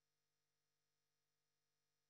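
Near silence: a muted or inactive call feed with no audible sound.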